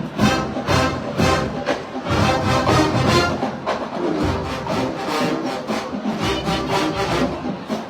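Marching band playing: brass over a steady drumline beat, with strong drum hits every fraction of a second.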